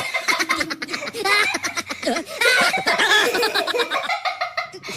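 Young girls laughing and giggling in short bursts.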